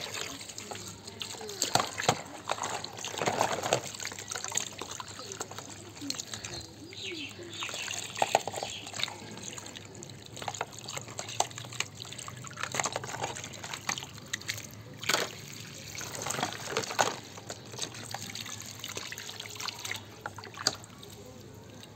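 Water trickling and splashing as muddy plastic toy vehicles are washed, with scattered short knocks and clicks from the toys being handled.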